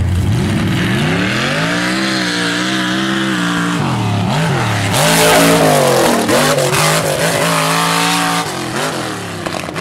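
Mega truck's engine revving hard in long, held pulls that rise and fall, with a loud rushing burst about five seconds in as it tears across the dirt.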